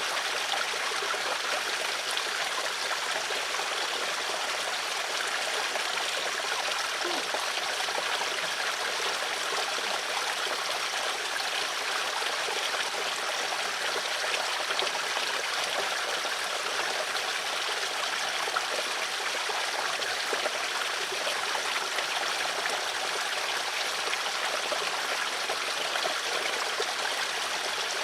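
Flowing water, a stream running steadily with a continuous trickling, splashing rush.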